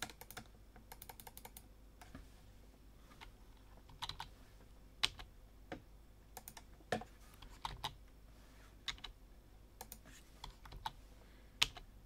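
Faint, irregular clicks of a computer keyboard and mouse as keys are pressed and buttons clicked, about a dozen scattered taps over a steady low hum.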